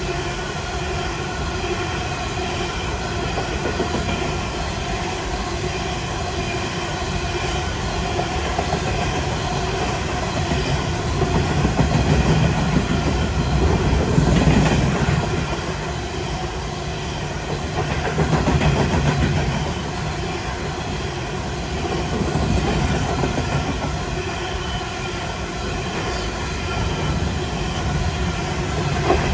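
A coal train's hopper wagons rolling steadily past on the rails: a continuous rumble and clatter of steel wheels, with several steady ringing tones over it. The sound swells louder every few seconds.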